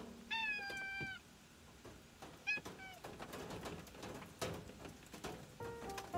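Tabby cat meowing: one long meow about a third of a second in that falls slightly at its end, then two short meows around two and a half seconds in. Soft music notes come in near the end.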